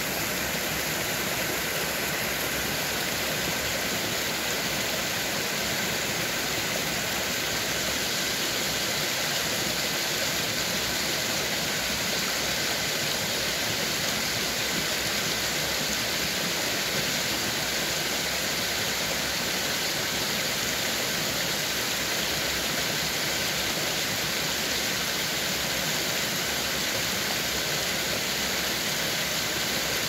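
Small waterfall spilling over rocks into a forest stream: a steady, unbroken sound of splashing, running water.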